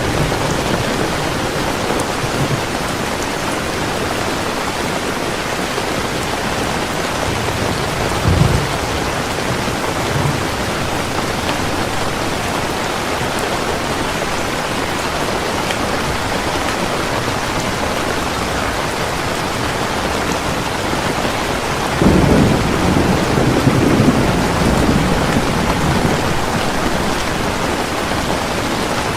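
Heavy rain falling steadily, with low rumbles of thunder: two short ones about eight and ten seconds in, and a longer, louder one starting about 22 seconds in.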